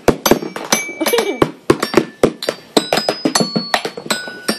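Toy xylophone with coloured metal keys struck rapidly and unevenly with a mallet, many of the strikes leaving a short, bright ringing tone.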